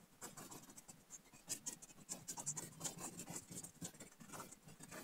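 Pen writing on a sheet of paper: a faint string of short scratching strokes as lines and diode symbols of a diagram are drawn.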